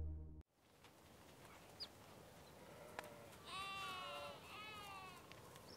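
Background music cuts off about half a second in. After a short pause, a goat bleats twice, two calls of under a second each with a slight fall in pitch.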